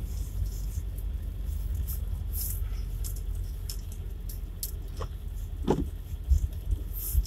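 Car cabin noise while driving slowly over a broken old road: a steady low rumble of engine and tyres with scattered light ticks and rattles. About five and a half seconds in, a short squeak as the windscreen wiper sweeps across the wet glass.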